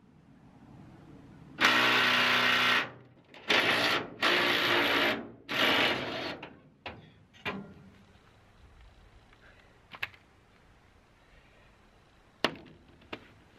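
Cordless power driver run in four short trigger pulls of about a second each on a rusted-in truck-bed bolt, followed by a couple of sharp knocks.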